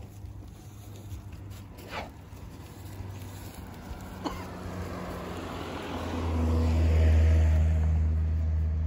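A motor vehicle passing on the road: a low engine hum and tyre noise swell over a couple of seconds, peak about two-thirds of the way in, then slowly fade.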